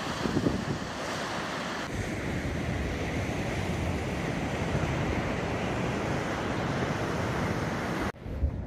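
Ocean surf breaking against a rocky sea cliff: a steady rushing wash of waves, with some wind buffeting the microphone. The sound shifts abruptly about two seconds in and drops away suddenly near the end.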